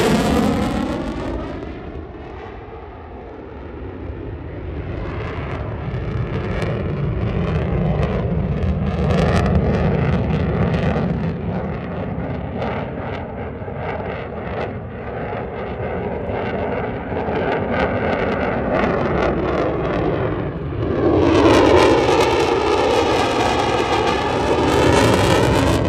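F-35A Lightning II's single jet engine in a flying display. A loud pass fades away over the first few seconds, then the jet's rumble and whine carry on at a distance while it manoeuvres. The sound swells again sharply about 21 seconds in as the jet makes another close pass.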